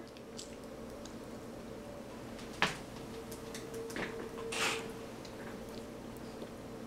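A Bichon Frise sneezes once on cue, a short puff of breath a little over four and a half seconds in. A single sharp click comes about two and a half seconds in.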